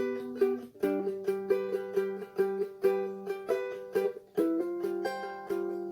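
Instrumental music with no singing: a small plucked string instrument, ukulele-like, plays a steady repeating rhythm of picked notes. The chord changes just under a second in and again a little after four seconds.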